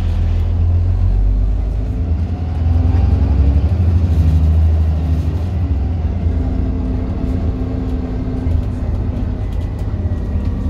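Alexander Dennis Enviro 400 double-decker bus running with a low engine drone; it gets louder for a few seconds, about two and a half seconds in, then settles back to a steady run.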